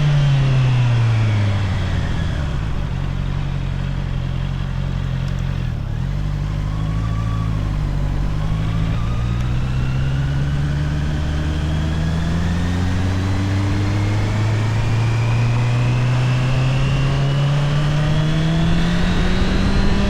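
Honda CBR650R inline-four on its stock exhaust: the engine note drops over the first two seconds as the bike slows, holds low for several seconds, then climbs in one slow, steady rise as it pulls away again.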